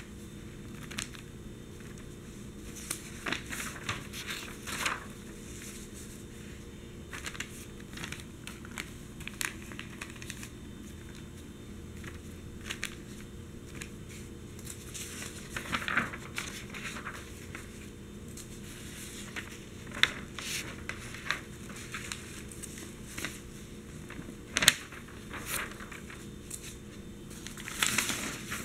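Large newsprint newspaper pages being handled: fingertips tapping and brushing on the paper, with crinkling rustles as pages are turned, louder about halfway and again near the end, and a few sharper taps in between.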